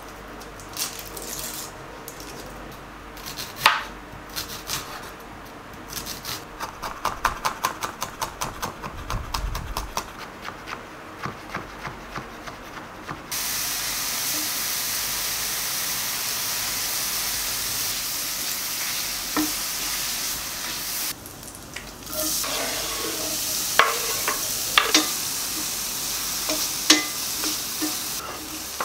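Kitchen cooking: a few taps, then a quick run of even strokes of a utensil stirring or whisking in a bowl. About halfway, a steady sizzle of food frying in a hot pan starts suddenly, with a utensil clinking against the pan now and then.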